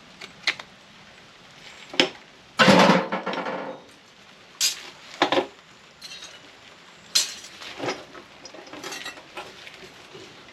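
Metal parts of a microwave clinking and clanking as it is taken apart by hand for scrap: a scatter of sharp knocks and clinks, with one louder rattle lasting about a second, some two and a half seconds in.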